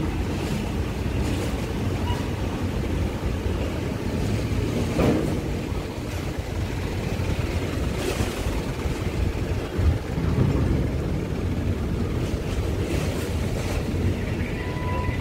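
Low, steady rumble of truck engines as loaded trucks drive up the steel ramp onto a ferry, with wind on the microphone and a couple of short thumps about five and ten seconds in.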